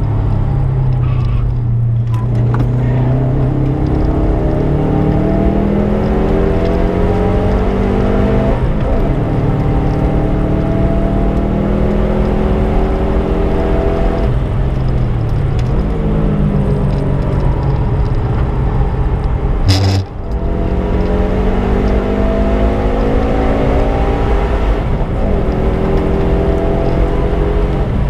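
Subaru Impreza's flat-four engine driven hard on track, its pitch climbing repeatedly under acceleration and dropping back at each gear change or lift. A brief sharp knock comes about twenty seconds in.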